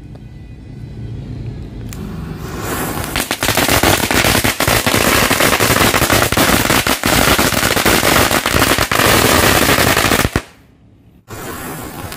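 A Golden Eye 'Green Lightning' (GE-1402) firecracker belt, a long string of small red firecrackers, going off. About three seconds in, a dense, rapid crackle of bangs begins and runs without pause, cuts out for about a second near the end, then resumes.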